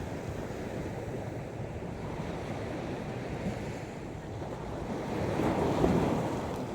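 Sea waves washing onto the shore, a steady rush that swells as one wave surges in about five seconds in. Wind buffets the microphone.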